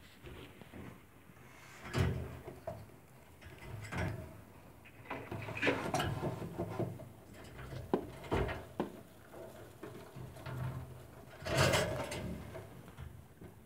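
Handling noise around a hay-lined nest of newborn rabbit kits: irregular rustling and soft knocks every couple of seconds, the loudest near the end.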